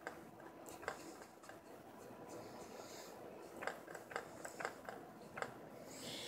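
Faint sounds of a watercolour brush working on paper: soft brushing with a scattering of light taps and clicks.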